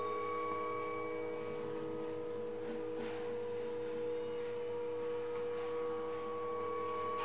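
Improvised experimental music on homemade instruments: several steady tones held together as a ringing drone, with a light scraping texture about three seconds in.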